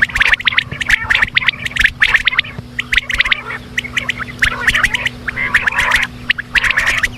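Quail calling: repeated bursts of rapid, sharp chattering notes, about one burst a second with short gaps between them.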